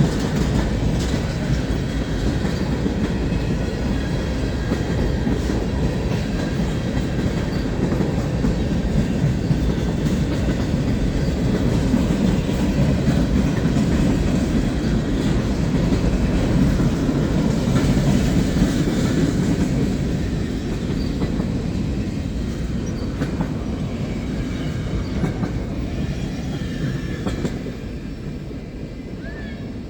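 Mixed freight train cars rolling past on the rails, a steady rumble of wheels and cars that grows quieter over the last few seconds.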